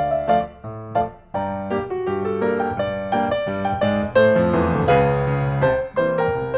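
Background piano music, a tune of quick, steadily changing notes.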